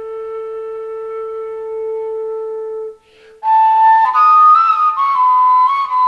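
Dark folk ambient music: a long, steady held note from a flute-like wind instrument breaks off about three seconds in. After a brief pause, a louder flute melody of stepping notes begins, with a lower second line entering near the end.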